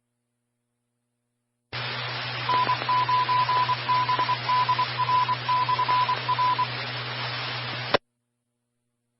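A radio transmission opens on the scanner with static hiss and a low hum, and about half a second later a single tone beeps out a pattern of short and long beeps for about four seconds: a Morse code identifier, typical of an amateur radio repeater. The carrier then drops abruptly with a click near the end.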